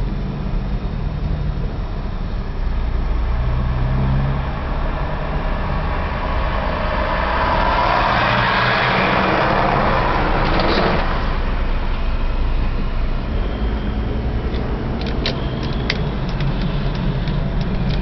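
Heavy truck engine and road noise heard from inside a moving vehicle: a steady low drone, with a rush of noise that swells midway and cuts off suddenly, and a few sharp clicks near the end.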